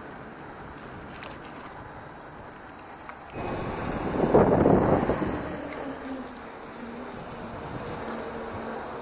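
Mountain bike rolling off along a dirt singletrack, its tyres making a low rustling noise. About three seconds in a louder rush of tyre and wind noise comes in, peaks for a second or two, then settles into steady rolling with a faint hum.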